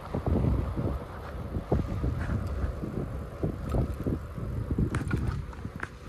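Strong gusty wind buffeting the microphone of a handlebar camera on a moving bicycle, an uneven low rumble that rises and falls. A few sharp clicks come near the end.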